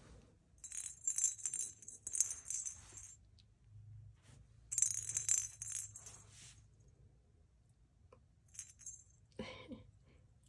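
Hollow plastic cat ball with a bell inside, jingling and rattling in two bursts of a couple of seconds each as it moves about.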